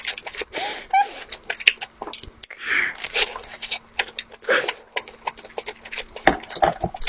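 Close-miked eating sounds as lobster is eaten: wet chewing with many sharp mouth clicks and smacks, short breathy noises and a few small squeaks.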